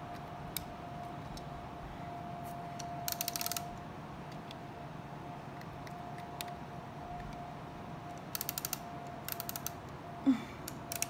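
Plastic LEGO Technic gears on the 42128 tow truck clicking in three short rapid runs as the model's mechanism is worked by hand, over a faint steady hum. One sharp knock near the end.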